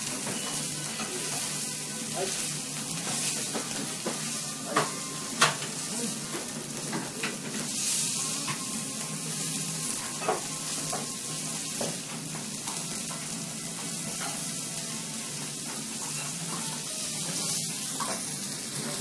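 Kobe beef sizzling on a teppanyaki steel griddle as it is cut, with a few sharp clicks of the steel knife and spatula striking the hot plate, the loudest a little over five seconds in.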